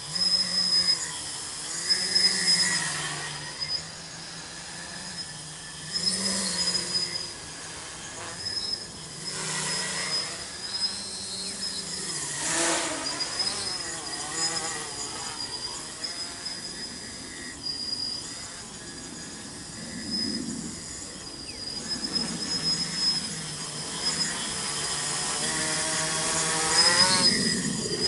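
Tricopter's three brushless outrunner motors (2216 900kv, 8x4.5 carbon-fibre props) buzzing in flight, the pitch wavering up and down with the throttle. It swells louder with sweeping pitch about twelve seconds in and again near the end.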